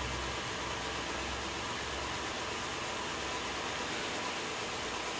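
HO scale diesel locomotive running steadily under DCC power with its sound decoder switched off, so only its electric motor and gears are heard: a steady whirring hiss with a low hum that weakens about half a second in.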